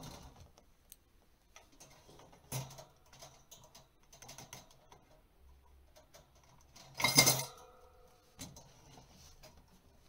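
Small clicks and rattles of a plastic yogurt cup being handled in a wire parrot cage's feed box, with one louder clatter about seven seconds in that rings briefly.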